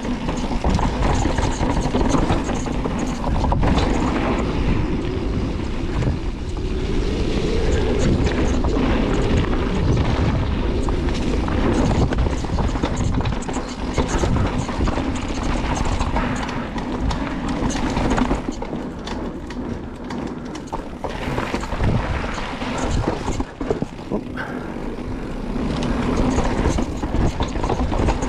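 Mountain bike descending a dirt trail: wind rushing over the microphone and tyres rolling on dirt, with frequent knocks and rattles as the bike goes over bumps.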